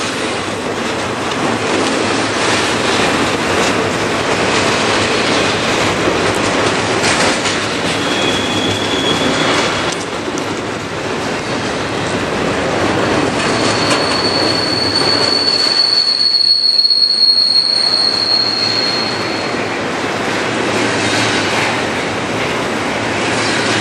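Double-stack container freight train rolling past on a curve: the steady rumble and clatter of its well cars' wheels on the rails. A high, steady wheel squeal comes in briefly about eight seconds in, then louder and longer from about fourteen to nearly twenty seconds in.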